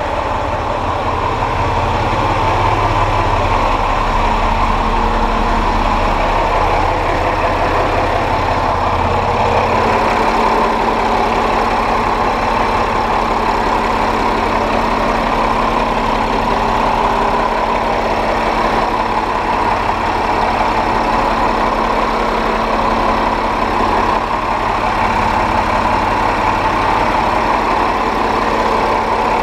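Boat engine-bay machinery running steadily: a constant hum with a steady low drone that changes slightly about ten seconds in.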